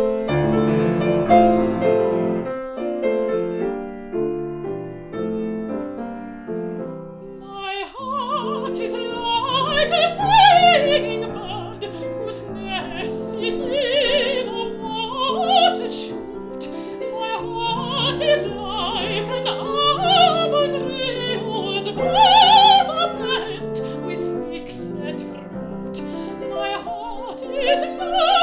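Piano plays a short introduction alone; about eight seconds in a mezzo-soprano enters, singing with vibrato over the piano accompaniment in an English art song.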